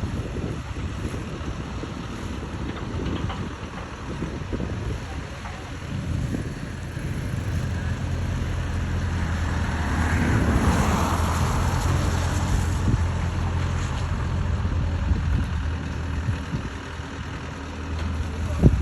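Mini excavator's engine running steadily, a low hum that settles in after a rumbling start, with wind buffeting the microphone. A hiss swells in the middle and fades again.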